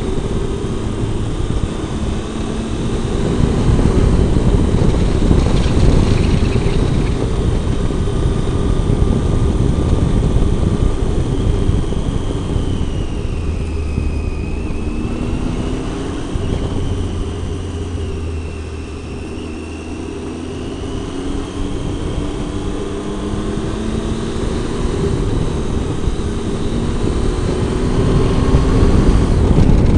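Triumph Tiger 800's three-cylinder engine running on the move, its revs rising and falling through the bends, with wind rush on the microphone. It eases off about two-thirds of the way through, then pulls up through the revs again near the end.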